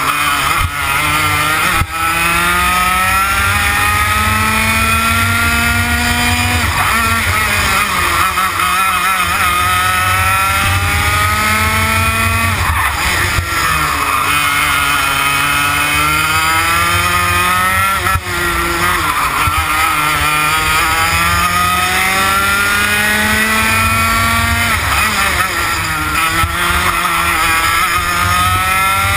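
TKM BT82 Extreme two-stroke kart engine running hard round a lap: its pitch climbs steadily along the straights and drops sharply into the corners, about five times.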